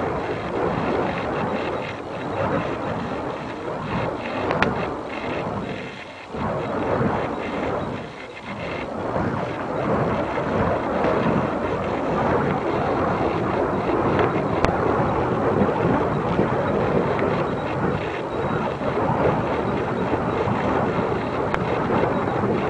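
Burning fire poi whooshing as they are swung in circles, a continuous rushing noise that swells and fades rapidly, with two short lulls about six and eight seconds in.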